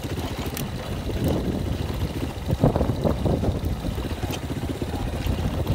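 Motorcycle engine running as the bike rides over a rough dirt track, with a few knocks about halfway through.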